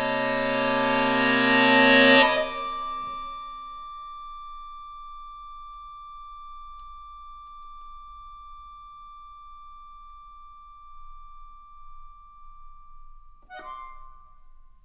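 Accordion playing a loud, dense cluster chord that swells and breaks off sharply about two seconds in, leaving a single high note held quietly for about ten seconds. The note stops near the end with a brief clatter.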